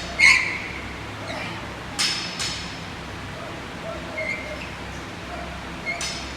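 A few sharp metallic clinks of gym equipment over a steady hum. The loudest, about a quarter second in, rings briefly. Two more come close together about two seconds in, and another near the end, with a few short high chirps in between.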